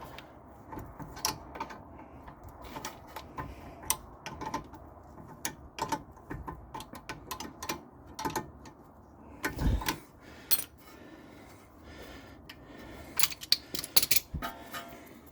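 Metal hand tools working on a rear brake caliper's bolts: irregular sharp clicks and clinks of wrench, vice grips and bolt, with a louder clatter about ten seconds in and a quick flurry of clinks near the end.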